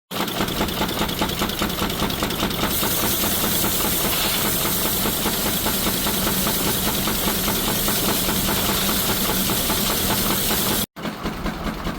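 Aultman Taylor steam traction engine running with a fast, steady mechanical beat. A loud hiss of steam comes in about three seconds in.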